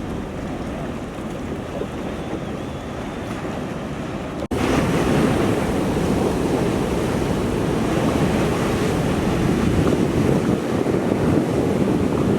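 Ocean surf breaking, with wind rumbling on the microphone; the sound cuts off for an instant about four and a half seconds in and comes back louder.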